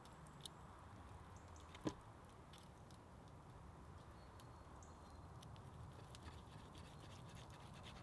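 Faint scraping and clicking of a steel knife and fork cutting grilled steak on a wooden board, with one sharper click about two seconds in.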